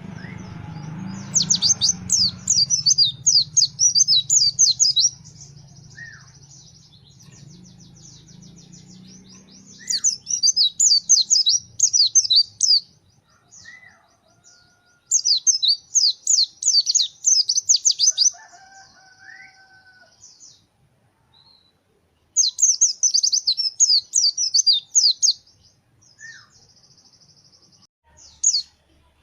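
White-eye (pleci) singing: four loud bursts of rapid, high chattering notes, each a few seconds long, with softer fast trills between them and a few short calls near the end. A low hum fades out in the first few seconds.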